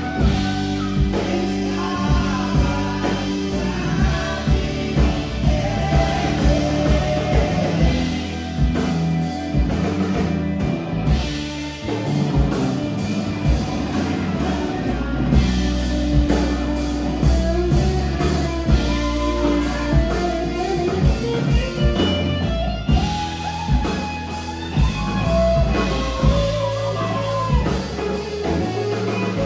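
A band playing a song with drum kit, guitar and a singing voice over a steady beat.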